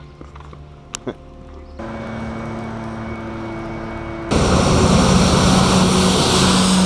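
Steady mechanical drone in two edited clips. About two seconds in, a moderate hum with a few held tones starts abruptly. From about four seconds in, a much louder drone with hiss and a low hum takes over, then cuts off suddenly near the end.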